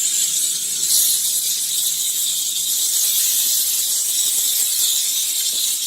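Vapor steamer blowing steam onto refrigerator surfaces to sanitize them: a steady high hiss with a brief louder surge about a second in.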